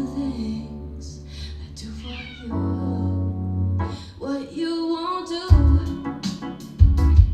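Music played through Bang & Olufsen Beolab 28 active speakers: a sung melody over sustained bass notes. About five seconds in, heavy kick-drum hits come in.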